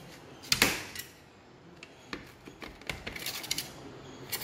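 Kitchen knife cutting through a paratha and striking the plate beneath: one sharp click about half a second in, then a few lighter clicks and scrapes of the blade on the plate.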